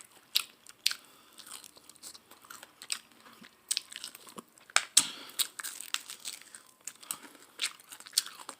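A person biting into and chewing crispy fried chicken wings close to the microphone: irregular crunches that come every fraction of a second.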